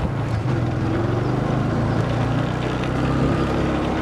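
Motorcycle engine running steadily while riding, under a haze of wind and road noise.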